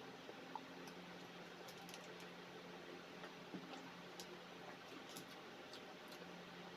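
Faint, irregular clicks and ticks of eating over a low steady hum.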